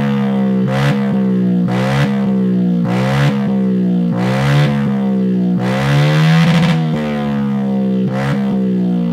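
Yamaha Aerox 155's single-cylinder engine running through a Shijiro M50 aftermarket exhaust, revved in repeated throttle blips about once a second. Each blip rises quickly in pitch and then sinks more slowly.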